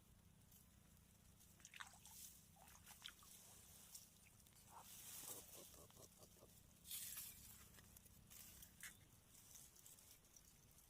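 Near silence: faint outdoor ambience with a few soft rustles and clicks and a brief hiss about two-thirds of the way through.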